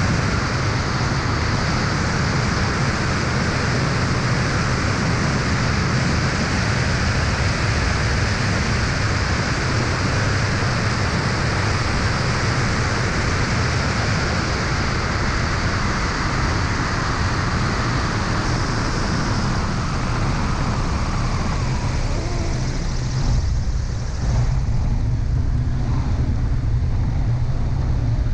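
Aeroprakt A22 ultralight in flight: loud, steady wind rush over a wing-mounted camera, with the aircraft's engine and propeller running underneath. About 23 seconds in, the upper hiss thins out and the sound shifts slightly.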